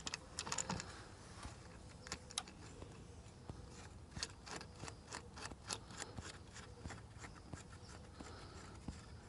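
Faint, irregular clicks and rubbing of plastic as hands turn and fit a Lowrance Active Target 2 transducer onto its mount arm.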